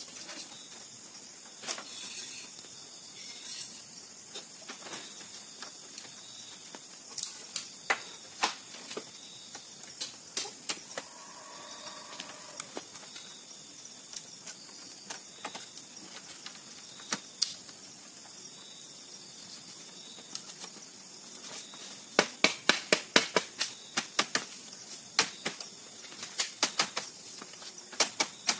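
Split bamboo strips clacking and knocking as they are handled and worked into a woven bamboo wall panel, with a fast run of sharp knocks, three or four a second, in the last third. Underneath runs a steady high drone of forest insects.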